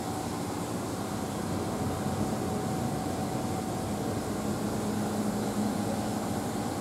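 Steady indoor room tone of a shop: an even hiss and hum with a faint constant high tone, and no distinct events.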